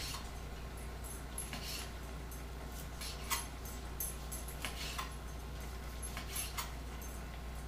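Scattered light ticks and taps: a knife cutting fried fish fillets into chunks on a cutting board, and a small dog's claws on the wooden floor, over a low steady hum.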